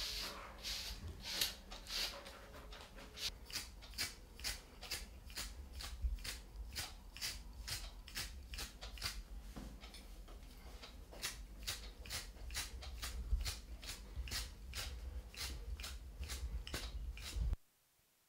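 Quick, rhythmic scraping strokes, about three a second, of a trimming tool pulling through an Airedale Terrier's wiry coat as it is hand-stripped. The strokes break off for a moment near the end.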